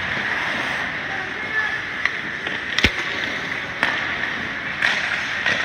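Ice hockey play: skates scraping the ice and a few sharp clacks of stick, puck and boards, the loudest about three seconds in, over a steady rink hum with spectators' chatter.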